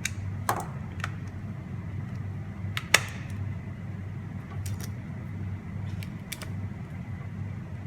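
Wahl hair clipper running with a steady low buzz while its blade-holder screws are tightened to stop a rattle; the holder was knocked loose when the clipper fell. Sharp metal clicks from the tool and casing sound several times, the loudest about three seconds in.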